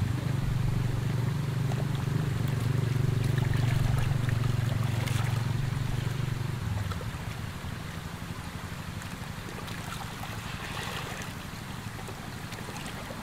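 A motor engine drones steadily nearby and stops about seven seconds in. After it, water sloshes and trickles in a fishing bag holding live catfish, with small splashes.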